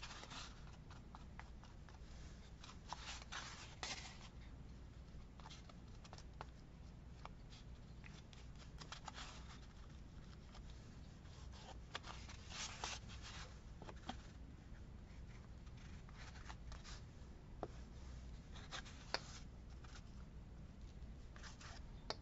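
Faint, scattered rustles and light taps of paper and cardboard being handled, over a steady low hum.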